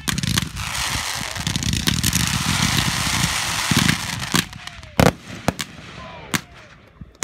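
Consumer firework cake going off: about four seconds of dense, rapid crackling and popping as shots launch, then separate sharp bangs of the shells bursting overhead, the loudest about five seconds in.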